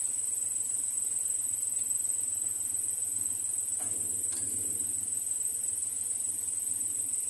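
Hot oil sizzling with a steady high hiss as a bhatura deep-fries in a kadhai, with two light clicks of a steel slotted spoon against the pan about four seconds in.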